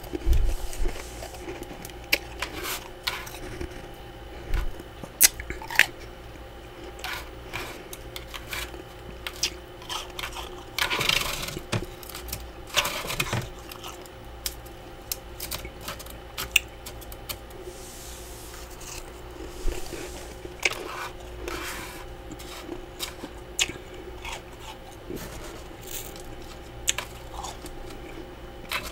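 Freezer frost crunching and crackling as chunks are broken and scraped off the frosted freezer walls by hand: irregular sharp crunches, with a longer run of scraping crunches about eleven seconds in.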